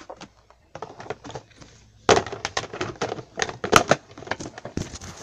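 Close handling noise on the recording device, with the lens and microphone covered by hand: a rapid, irregular run of clicks, taps and rustles, busier from about two seconds in.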